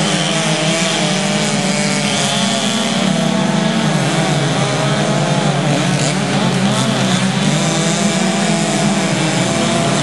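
Several chainsaws running at full throttle together while cutting through a tree, their engine pitches wavering up and down as they load in the wood.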